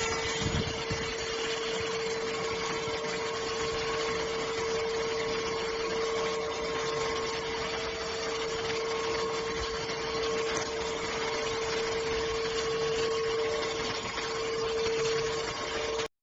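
ENOLUX K7 PRO cordless vacuum cleaner motor running steadily, a rushing hiss with a strong steady whine, stopping abruptly near the end.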